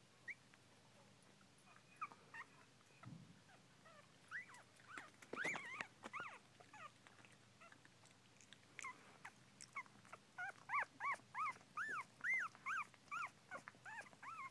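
Newborn miniature dachshund puppies, eyes not yet open, squeaking and whimpering in short, high-pitched calls that rise and fall. The calls are scattered at first and come in a quick run of about two or three a second near the end.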